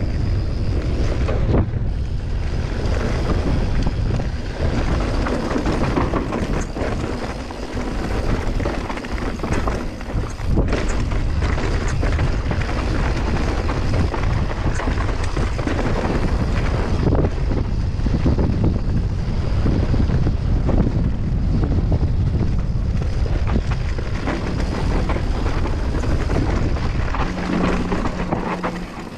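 Mountain bike descending a dirt trail at speed: wind buffeting the microphone over the roar of the tyres, with frequent knocks and rattles from the bike over rough ground.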